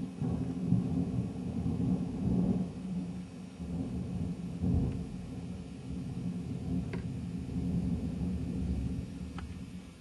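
A long roll of thunder during an electrical storm, a deep rumble that swells and ebbs in loudness.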